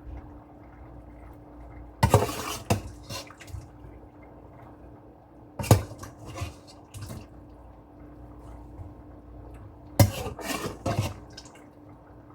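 Pots, pans and utensils clattering in three short bursts, about two seconds in, near the middle and about ten seconds in, over a steady low hum.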